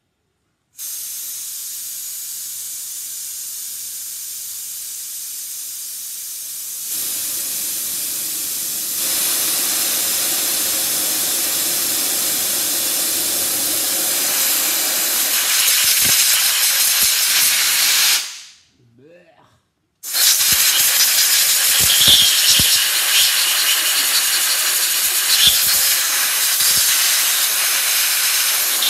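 Air-powered solvent spray gun hissing as it blasts diesel fuel onto an engine's cylinder head to wash away grime. It starts about a second in, gets louder twice, stops for about two seconds a little past the middle, then starts again.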